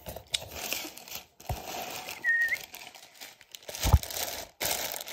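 Plastic packaging crinkling and rustling as hands handle an air-pillow-packed box and a plastic-wrapped booster box, with a few knocks and a loud thump about four seconds in. A brief high squeak sounds a little past two seconds.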